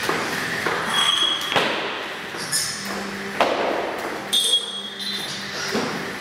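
Jump rope slapping the rubber gym floor with the thuds of a woman's landings as she skips, a string of sharp impacts roughly every half second to a second.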